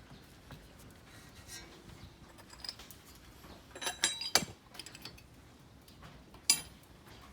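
Metal tools and brake parts clinking and clanking as they are handled during a brake job: scattered small clicks, a cluster of ringing metal strikes about four seconds in, and another sharp clank about six and a half seconds in.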